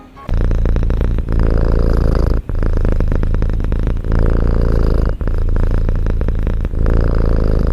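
A cat purring loudly and close up, in long runs that break briefly about every second and a half as it breathes in and out.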